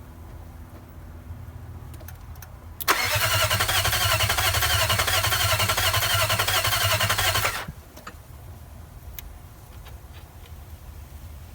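Nissan VK45DE 4.5-litre V8 turned over by its starter motor for about five seconds in an even, rhythmic crank that starts and stops abruptly, without the engine catching. It is a crank-no-start: the engine turns over but won't fire, and the owner hasn't heard the fuel pump come on with the key.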